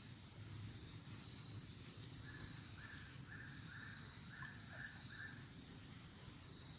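Faint animal calls: seven short notes in a row, about two a second, over a steady high trilling of insects.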